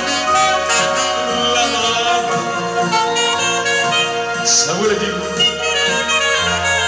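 Live band music: a saxophone plays a sustained melody over keyboard backing with steady low bass notes.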